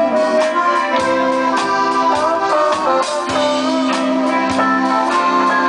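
Live country band playing an instrumental passage without vocals: accordion holding sustained chords under a melody line, with electric guitar and drums keeping a steady beat.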